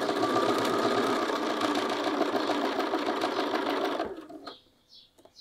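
Bernina sewing machine stitching a seam through layered bag fabric at a steady speed, with an even run of stitches; it stops about four seconds in.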